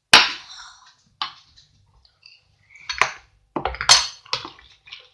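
A spoon clinking and knocking against a bowl in several sharp hits. The loudest comes right at the start, with a cluster of hits about three to four seconds in.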